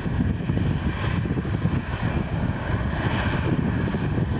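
Boeing 737-800's CFM56-7B turbofan engines running at taxi thrust: a steady rumble with a fainter whine above it.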